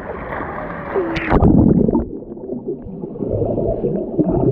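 A splash about a second in as the microphone goes under the pool water, then muffled, gurgling underwater sound.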